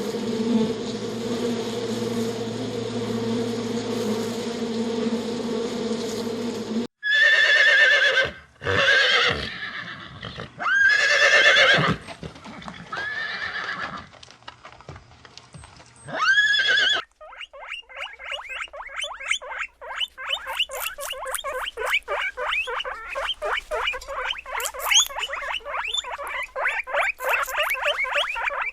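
A steady insect buzz for about the first seven seconds, then a horse neighing about five times. From about seventeen seconds in, rapid high-pitched squeaking, many squeaks a second, as of small rodents.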